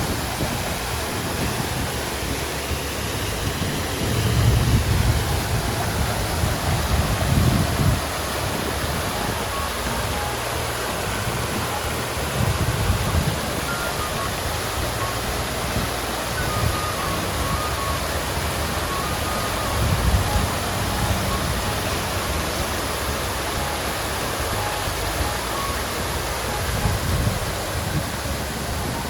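Water fountain splashing steadily, with a low rumble that swells now and then every few seconds.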